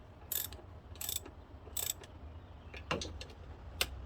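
Socket ratchet clicking in three short runs, then two sharp single clicks, as the throttle body's mounting screws are snugged down by hand.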